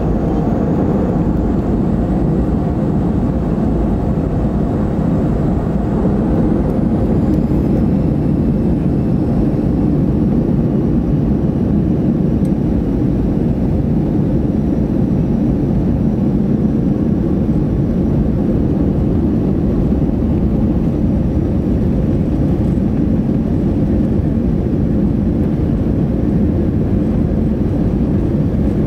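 Cabin noise inside a Boeing 737-500, heard from a window seat over the wing: a steady, loud rumble from its CFM56-3 turbofan engines and airflow as the jet moves along the ground. A faint high whine rises a little about seven seconds in.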